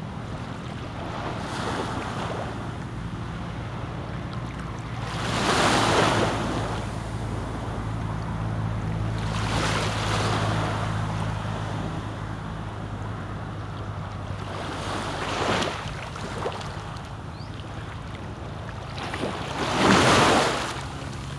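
Small waves washing in on a shallow sandy shore, the rush swelling and fading about every four seconds, loudest twice, with a steady low hum underneath.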